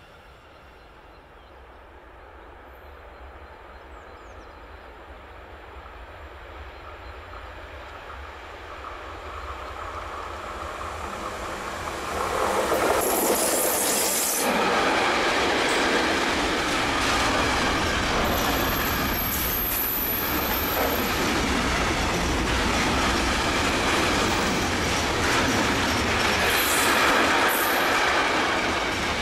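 A train approaching, growing steadily louder for about twelve seconds, then passing close by with the rumble and clatter of its wheels on the rails. High-pitched wheel squeal cuts in several times while it passes.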